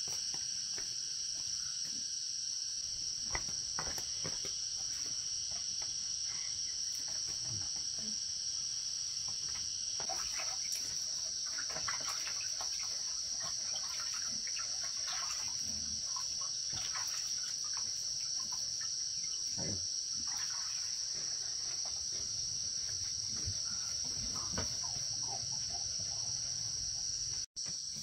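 A steady, high-pitched insect chorus, with scattered light knocks and clatter over it. The sound cuts out for an instant near the end.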